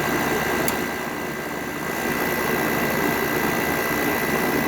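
Modern GE 6500 BTU window air conditioner running steadily on high fan while cooling: the rush of its plastic scroll-cage blower with a steady high whine. A single faint tick just under a second in.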